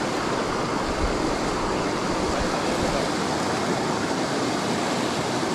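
Steady rush of a fast river running over rocks in shallow rapids.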